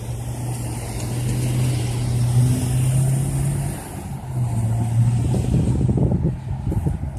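Track-repair machine passing on the rails: a steady engine hum that dips briefly partway through, with a run of sharp knocks and rattles starting near the end.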